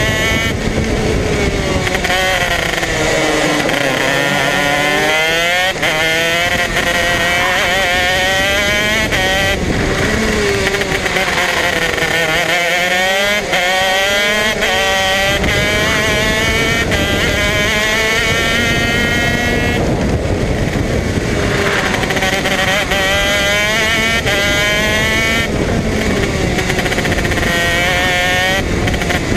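Modena Engines 125 cc KZ two-stroke shifter kart engine heard from on board at racing speed, its revs repeatedly climbing for several seconds and then falling away as the kart accelerates out of corners and brakes into the next ones.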